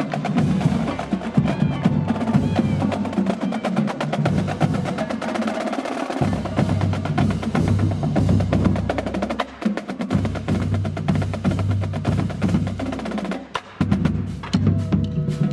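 Marching band drumline playing: rapid snare strokes and rolls over heavy bass drum hits that come and go in phrases.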